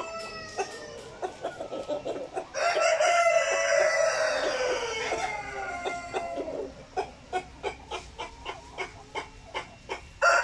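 Seven-month-old black Australorp cockerel crowing once, a call of about three seconds that sinks in pitch at its end. Short clucking notes come before and after it, about three a second, and another crow begins right at the end.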